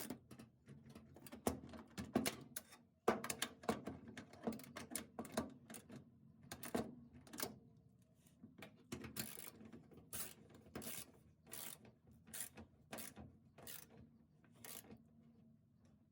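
Hand socket ratchet clicking in short bursts, one with each back-swing, as the hood hinge bolts are run in and tightened.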